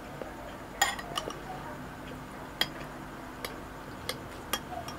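Metal spoon clinking against a glass bowl and tapping on a wooden serving board while scooping food: about six sharp, separate clicks, the loudest about a second in.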